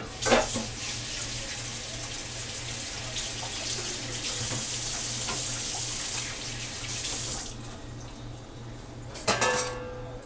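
Kitchen tap running, a steady rushing of water for about seven seconds, then shut off. A short clatter of a metal pot or lid follows near the end.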